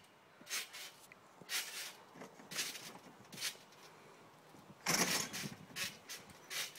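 Trampoline bouncing: springs and mat creaking in short bursts about once a second with each bounce, with a louder noise about five seconds in as a jumper goes up to the small hoop to dunk.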